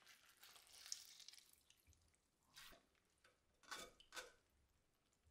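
Faint water dripping and splashing into a stainless steel mesh strainer as blanched spring cabbage leaves are squeezed dry by hand. A soft wet trickle comes first, then a few separate drips near the middle and about four seconds in.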